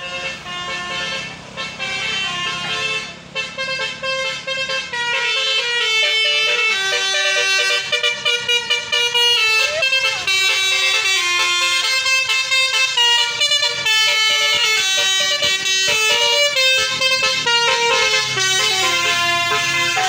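Bus 'telolet' musical air horn playing a quick melody of stepping notes, getting louder about five seconds in as the bus draws near.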